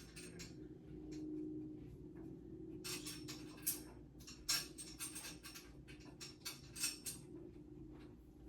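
Scattered clicks, taps and light knocks of dresser parts and screws being handled and fitted by hand during assembly, with a few sharper taps between about three and seven seconds in, over a faint steady hum.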